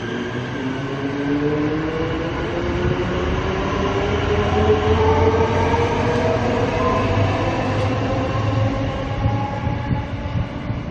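High Capacity Metro Train (HCMT) electric train pulling out of the station, its traction motors whining and rising steadily in pitch as it gathers speed, over a low rumble. The sound eases off near the end as the train draws away.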